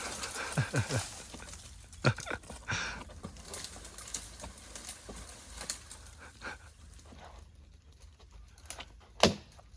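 Scattered light knocks and clicks at an uneven pace, with one sharper knock near the end.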